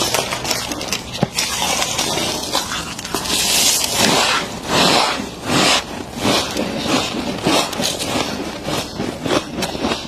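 Thick chest-freezer frost being scraped out and crunched by hand: an irregular run of crisp crunches and scrapes, packed most densely a few seconds in, as the frost is scooped into a bowl and bitten.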